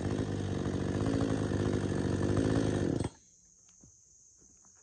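Cheap gasoline two-stroke chainsaw running steadily, then cut off abruptly about three seconds in. After that there are only faint ticks and rustles.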